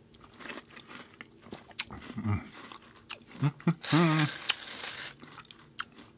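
Chewing and crunching of a dry, crumbly gluten-free vegan chocolate chip cookie, with many small mouth clicks. About four seconds in comes a short hummed sound with a loud breathy rush, the loudest moment.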